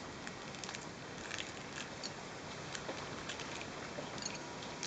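Faint, scattered small clicks and crackles of people eating balut, likely eggshell handling and chewing, over a steady background hiss.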